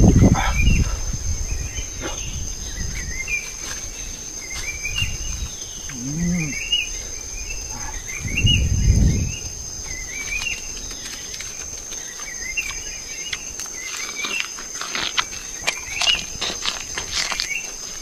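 Tropical forest ambience: a steady high-pitched insect drone, with short warbling bird calls repeating about once a second. Low rumbles break in near the start and again about halfway through.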